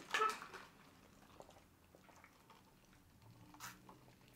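Quiet sipping of drinks through straws. A short, louder mouth sound comes in the first half second, and a faint tick comes about three and a half seconds in.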